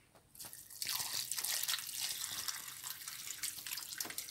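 Freshly boiled water poured from an electric kettle into a plastic bowl of dry instant noodles. The pouring starts about half a second in and eases off near the end.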